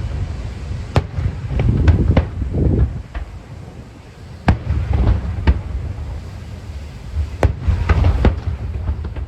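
Aerial firework shells bursting in a string of sharp bangs, several in quick clusters, over a continuous low rumble from the explosions. The rumble eases off about four seconds in, then builds again.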